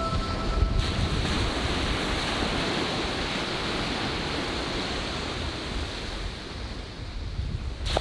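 Ocean surf washing onto a sandy beach, a steady rush of breaking waves, with wind rumbling on the microphone. A few lingering chime-like music notes die away about a second in.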